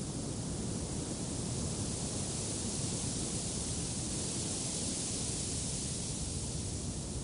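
Steady wind, an even rushing noise that swells a little in the middle.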